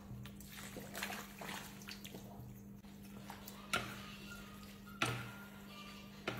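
Saucy braised meat and vegetables poured from a steel pot onto a platter of noodles, splashing and dripping, then chopsticks tossing the noodles. Three sharp clicks of utensils knocking the platter come about halfway, a little later, and near the end, over a steady low hum.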